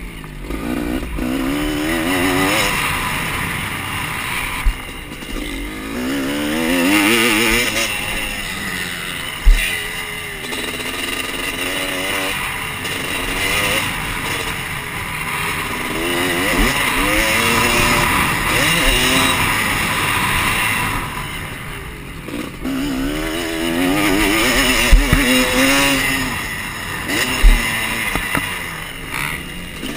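Motocross dirt bike engine heard from on the bike, revving up and dropping back again and again through corners and jumps, under heavy wind noise. A few sharp thumps stand out, the loudest about nine and a half seconds in and near the end.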